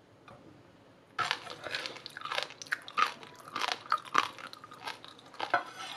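Close-up biting into and chewing a cube of air-fried roast pork belly, whose crisp crackling skin breaks in a quick, irregular run of crunches starting about a second in.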